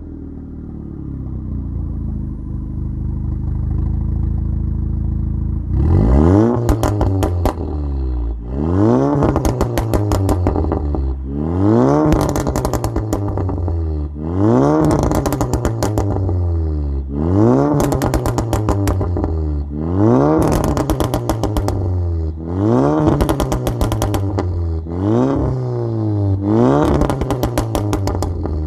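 Stage 3 tuned Audi S3's turbocharged 2.0-litre four-cylinder engine, running through a Scorpion valved exhaust. It idles steadily for about six seconds, then is revved hard about nine times in a row. Each rev climbs and falls in pitch and ends in a burst of pops and crackles from the exhaust as the revs drop back.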